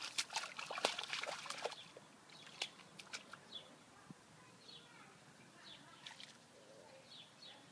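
A puppy splashing and pawing in a shallow muddy puddle: sloshing water for the first couple of seconds, then only a few faint splashes.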